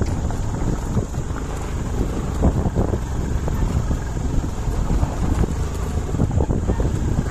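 Motorcycle riding over a rough dirt track, with wind buffeting the microphone and frequent knocks and rattles from the bumps.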